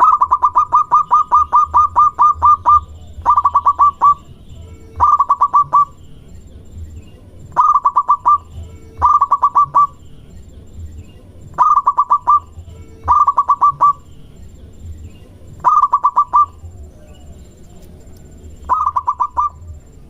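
Zebra dove (perkutut) song: quick staccato cooing notes in runs, first a long run of about a dozen notes, then eight shorter bursts of five or six notes each, repeated every couple of seconds.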